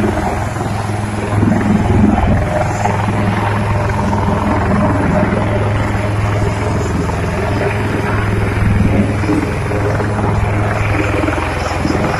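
Indian Air Force Dhruv Advanced Light Helicopter running with a steady, even noise throughout.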